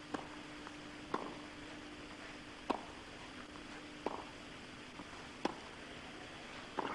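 Tennis ball struck back and forth with racquets in a rally, six crisp hits about a second and a half apart. A faint steady hum runs underneath.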